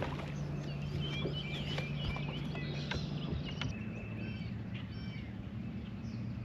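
Small birds chirping and calling over and over in short, quick notes, over a steady low hum.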